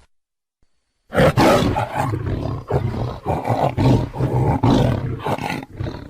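Tiger roaring: after about a second of silence, a loud run of deep, pulsing roars with several surges, fading near the end.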